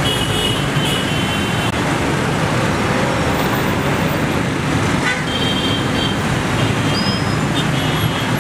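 Steady roar of a dense traffic jam: many idling and creeping cars, motorcycles and auto-rickshaws, with vehicle horns tooting briefly several times throughout.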